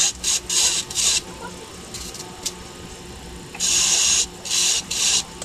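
Repeated scraping strokes of a hand tool or abrasive on hardwood: three strokes, a pause of about two seconds, then three more, over a low steady hum.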